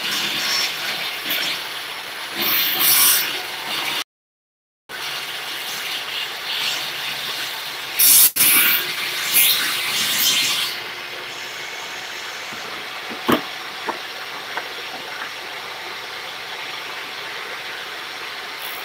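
Table saw running with a steady hiss and irregular scraping as the sled and aluminum are worked past the blade, with a sharp click about eight seconds in. The sound cuts out briefly about four seconds in, and after about eleven seconds settles to a steadier, quieter hiss.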